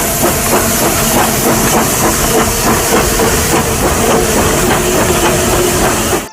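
Steam locomotive chuffing with a loud hiss of steam, in a fast even beat of puffs; it cuts off suddenly near the end.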